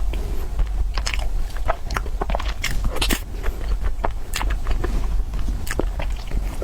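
A person eating something crunchy close to the microphone: irregular crisp bites and chewing crunches, several a second, over a steady low hum.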